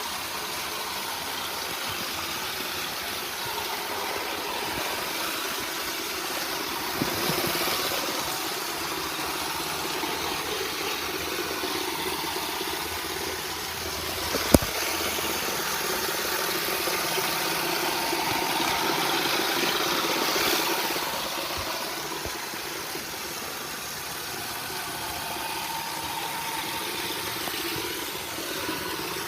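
iRobot Roomba robot vacuum running, a steady whir of its vacuum motor and brushes, with a few clicks and one sharp knock about halfway through.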